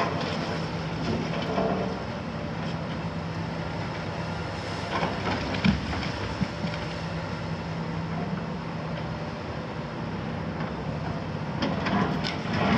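Hitachi demolition excavator's six-cylinder Isuzu diesel engine running steadily as the long demolition arm works a sorting grapple. A few sharp knocks come about halfway through, and a clatter of concrete rubble near the end as the grapple comes down into the debris.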